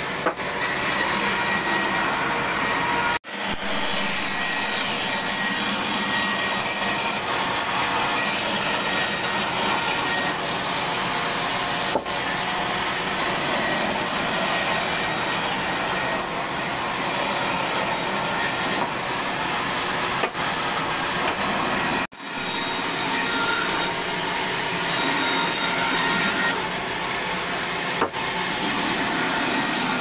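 Sawmill band saw ripping a squared timber beam into planks: a loud, steady sawing noise that cuts out for an instant twice.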